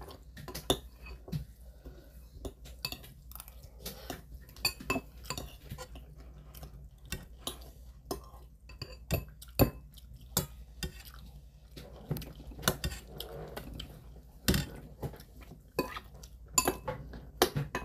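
Spoons and chopsticks clinking against stainless steel bowls during a meal: many short, irregular clinks throughout.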